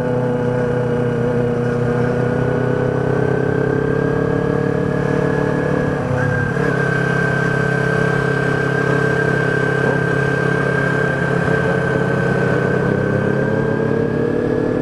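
Kawasaki Ninja 250R's parallel-twin engine running under steady load at an even cruising speed, heard through a microphone inside the rider's helmet. Its pitch sags slightly, dips briefly about six seconds in, and climbs a little near the end.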